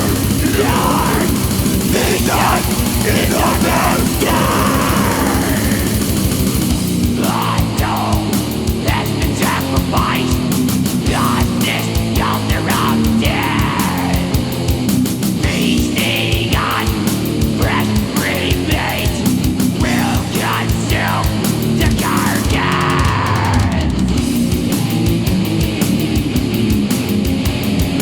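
Death metal from a 1995 cassette recording: an instrumental passage of heavily distorted guitars and bass over fast drumming.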